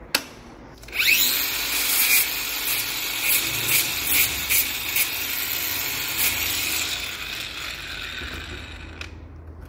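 A small handheld power tool clicks on and spins up about a second in, then grinds metal with a harsh, high hiss that rises and falls as it bites, before stopping abruptly near the end.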